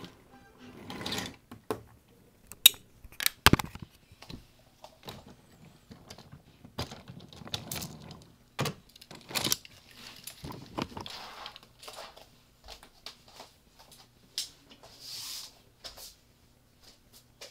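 Irregular clicks, knocks and clatter of wooden toy trains and track pieces being handled, with the sharpest knocks about three seconds in and again near the middle.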